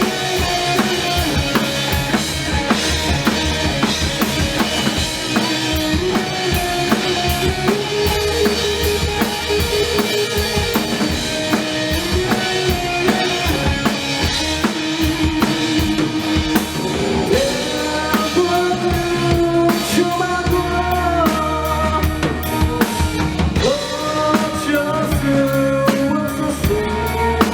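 A band playing live rock music: a drum kit keeps a steady beat with bass drum and snare, under a bass line and a gliding melody line.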